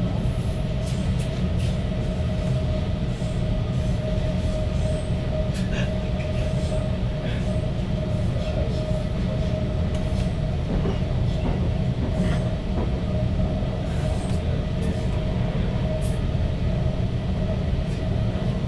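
Stockholm metro train running at speed, heard from inside the car: a steady rumble with a constant mid-pitched whine and occasional faint clicks.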